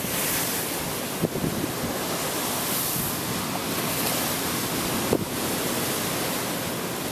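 Storm waves breaking along the shore in a gale, a steady loud wash of surf and wind. Wind buffets the microphone with a short thump twice, about a second in and again near five seconds.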